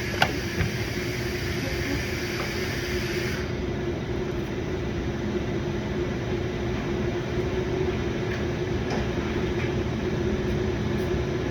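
Steady mechanical hum of running machinery with a constant low tone throughout. There is a single sharp click about a quarter second in, and a higher hiss over the hum stops about three and a half seconds in.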